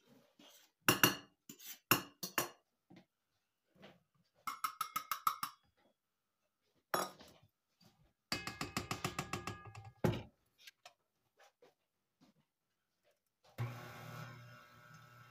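Clinks and knocks of utensils against a stainless steel mixing bowl as flour is added, with two quick rattling runs. About 13.5 seconds in, the stand mixer's motor switches on and runs steadily to mix the flour in.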